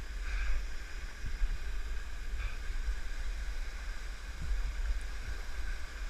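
Steady rush of waterfall water under a strong, uneven low rumble.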